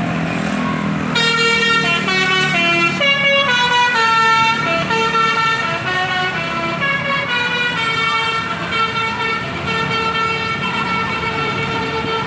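An Indonesian intercity bus's telolet musical air horn plays a quick run of stepping notes from about a second in, then holds longer chords.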